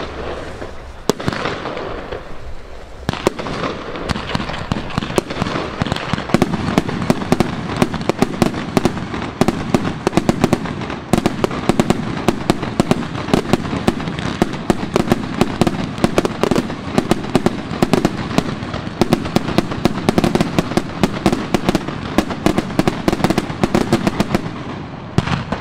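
Fireworks display: a few scattered bangs, then a few seconds in a dense barrage of aerial shells bursting in rapid bangs and crackle that stops abruptly near the end.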